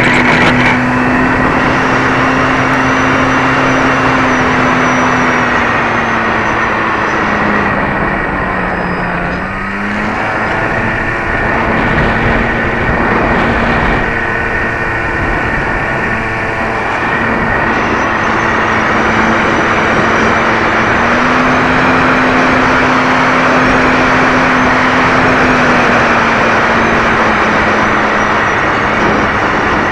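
Radio-controlled PT-19 model plane's engine running hard, heard from a camera mounted on the plane, under loud wind and propeller rush over the microphone. Its pitch sags about eight seconds in, climbs back, rises again around twenty seconds and then settles.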